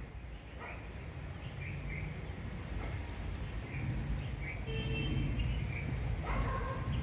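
Low rumble of an approaching MEMU electric multiple-unit train, growing steadily louder, with birds chirping now and then. A brief high-pitched tone sounds about five seconds in.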